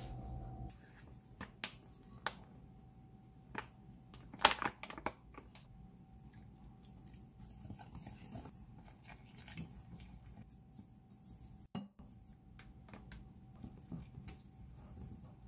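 Wooden chopsticks clinking and scraping against a glass mixing bowl while dry flour is stirred for sujebi dough. The loudest is a cluster of sharp glass clinks about four to five seconds in, and scattered lighter taps follow.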